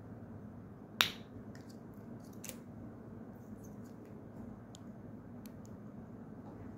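Glass ampoule snapped open with a single sharp crack about a second in. Afterwards a few faint clicks and ticks as a plastic syringe is handled to draw up the drug.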